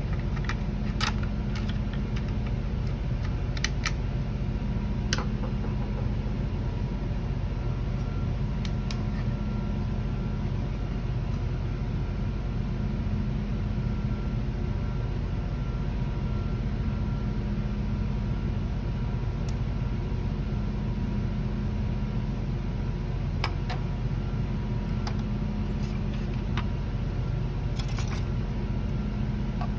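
Steady low machine hum with a few light clicks and taps, scattered through, of small parts being handled.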